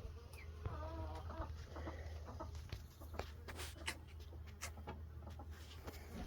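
Meat chickens clucking, with a few short pitched calls and scattered light clicks over a steady low hum.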